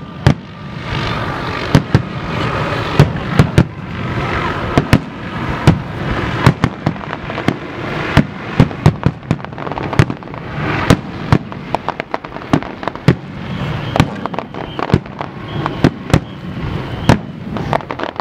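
Aerial firework shells bursting in quick succession, two or three sharp bangs a second, over a continuous hissing wash from the bursts and rising shells.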